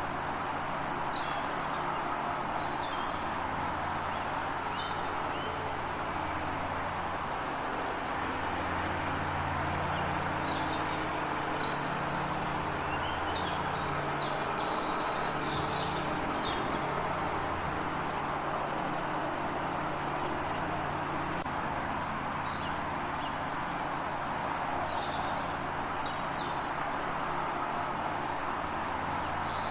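Small birds chirping in short, high calls scattered through the whole stretch, busiest about ten to seventeen seconds in, over a steady background hiss and low hum.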